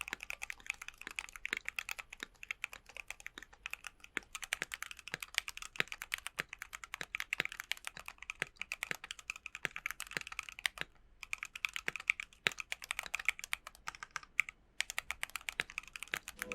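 Typing on a full-aluminium Keychron Q1 custom mechanical keyboard with Gateron Phantom Red linear switches and PBT keycaps: fast, continuous key clacks, with short pauses about eleven and fourteen and a half seconds in.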